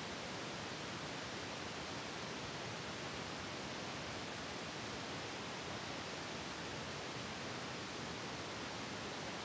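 Steady, even hiss with no distinct events, like a recording's noise floor.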